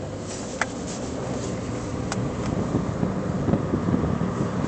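Car driving with the windows down: wind rushing in through the open windows and buffeting the microphone, growing louder as the car gathers speed downhill, over a steady engine hum that fades under it. A couple of faint clicks.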